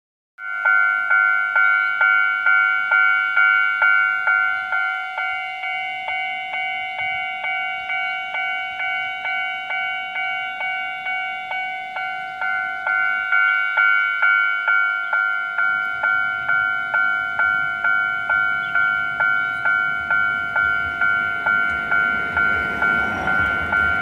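Taiwan Railway level-crossing warning bell ringing: a fast, even run of electronic dings, a little under three a second, on a steady chord, signalling that a train is coming. It is softer for a stretch in the middle and louder again later, and a low rumble builds underneath in the last several seconds.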